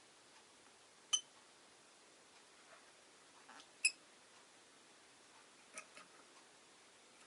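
Rosy-faced lovebird giving three short, sharp single chirps, about a second, four seconds and six seconds in.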